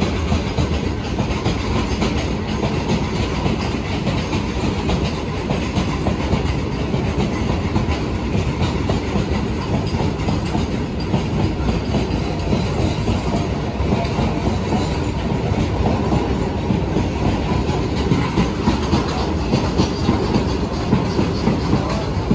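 Freight train wagons rolling past, a steady heavy rumble with continuous wheel clatter over the rail joints; the clatter comes in sharper beats near the end.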